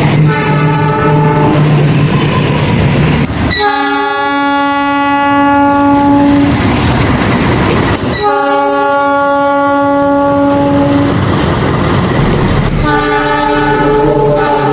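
Diesel locomotive horns sounding four blasts, each a steady chord of several notes: a short one at the start, two long ones of about three seconds each, and another beginning near the end. Between the blasts, wheels clatter steadily on the rails of a passing train.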